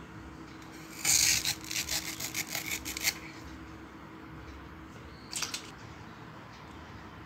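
Fibrous banana stem cut against the edge of a boti, a curved upright Bengali floor blade: a quick run of rasping, scraping strokes about a second in, lasting some two seconds, then one more brief scrape a couple of seconds later.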